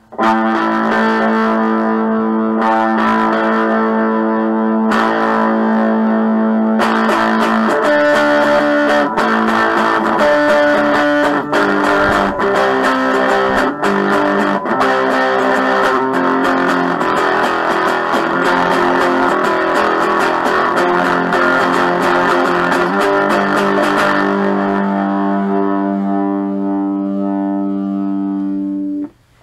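Intro music led by a distorted guitar, ending on a long held chord that cuts off abruptly.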